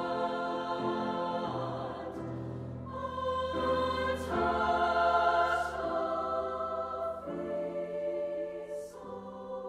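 Treble choir singing sustained chords with piano accompaniment, growing louder around the middle and softening near the end.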